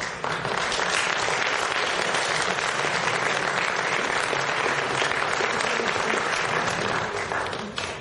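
An audience applauding: dense, steady clapping that starts right away and dies down just before the end.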